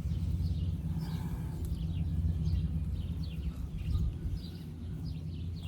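Small birds chirping repeatedly, short quick falling notes, over a steady low rumble.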